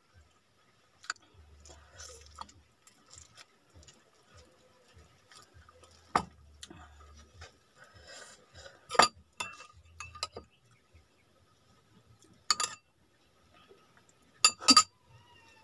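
A metal spoon clinking against dishware at a meal: a handful of sharp, ringing clinks spread out, the loudest about nine seconds in and a quick pair near the end, with soft handling and mouth sounds between.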